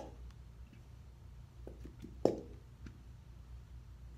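A few light knocks and taps from a plastic glue bottle and bowls being handled while the glue is emptied out, the loudest about two seconds in, over a faint steady low hum.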